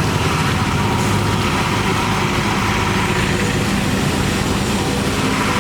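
Diesel engine of heavy earthmoving machinery running steadily at an even speed.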